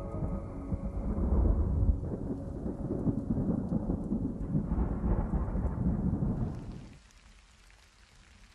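Rolling thunder over rain. The rumble is loudest about one to two seconds in and dies away about seven seconds in.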